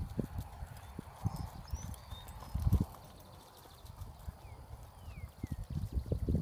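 Hoofbeats of a ridden young quarter-type gelding cantering on grass and dirt around a barrel: irregular dull thuds, loudest about two and a half seconds in and coming quicker near the end.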